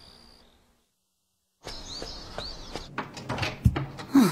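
Faint night-time crickets fade out into a second of silence, then morning birdsong comes in with two short rising chirps, followed by several clicks and knocks of a door being opened.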